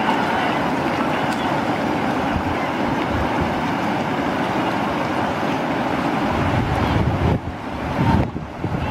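River rapids rushing as a steady hiss of white water. Near the end, low gusts of wind buffet the microphone.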